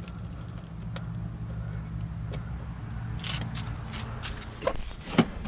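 Hand tools clinking and scraping on metal in a car's engine bay as a screwdriver is worked and then gathered up, with a run of sharp clicks near the end and one loud clank. A steady low hum underneath.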